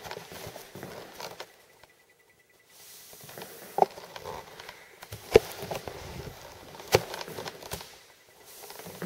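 T-bar floor-finish applicator pad sliding over a hardwood floor, a soft swishing hiss as it spreads the finish, with a brief pause about two seconds in. Three sharp knocks come in the second half, about a second and a half apart.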